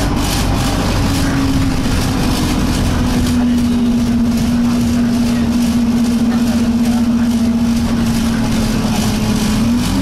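Inside an Alexander Dennis Enviro200 single-deck bus on the move: a loud, steady vibration hum over the engine and road noise, its pitch sagging slowly and rising again near the end.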